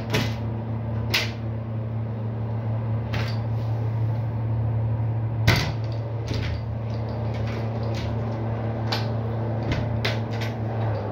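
SureHatch SH4000 combination egg incubator running with a steady hum, while its door latches are worked by hand, giving a series of sharp clicks and knocks, the loudest about halfway through. Near the end the hum cuts off as the door is opened and the machine shuts down.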